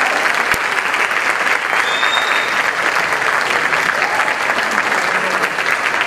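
Audience applauding: dense, steady hand clapping.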